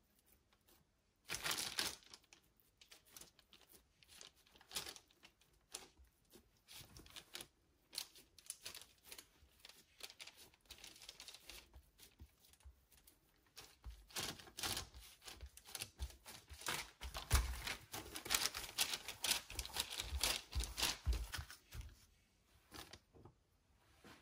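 Hand-handling noises: a long run of irregular crinkling and tearing strokes that grows busier and louder in the second half.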